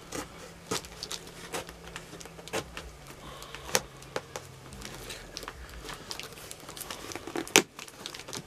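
Knife blade slicing and picking at packing tape on a small cardboard box: a string of irregular scrapes, ticks and crinkles, with one louder snap near the end.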